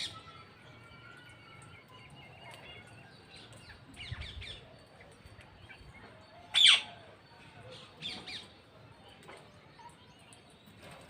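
Parrots calling in short, sharp squawks and chirps, spaced apart, the loudest a single squawk about two-thirds of the way through.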